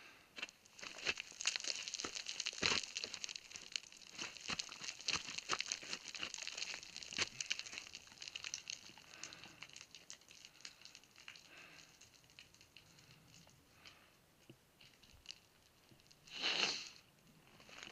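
Footsteps crunching and scraping on loose scree, with small stones clicking and shifting underfoot, dense in the first half and sparser after. A short, louder hiss sounds near the end.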